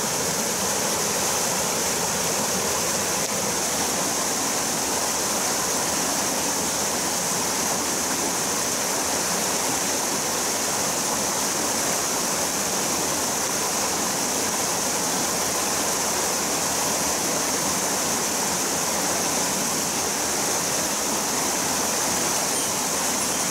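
Steady rush of water pouring over a small erosion-control dam and through the rocky stream below it.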